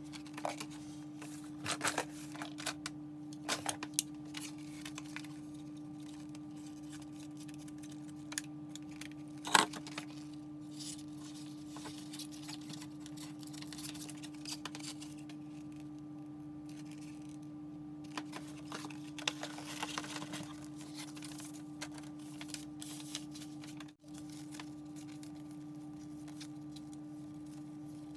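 Scattered taps, clicks and rustles of paper and small items being handled, over a steady electrical hum, with one sharp knock about ten seconds in.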